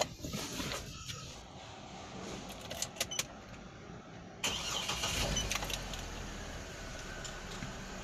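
A few light clicks from the console, then about four seconds in the Hummer H3's engine is started and settles into a steady low idle, heard from inside the cabin.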